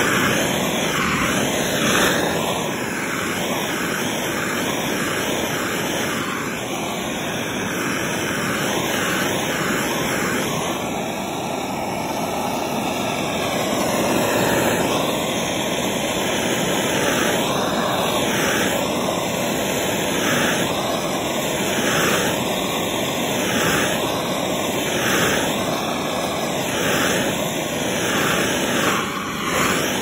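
A heat tool blowing a steady, loud rushing hiss onto a solder-seal ring terminal, with a whooshing that repeatedly rises and falls. It is shrinking the connector's tubing and melting its solder ring onto the wire.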